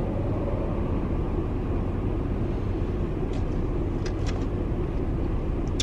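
Car idling, heard from inside the cabin: a steady low hum, with a few faint clicks about three to four seconds in.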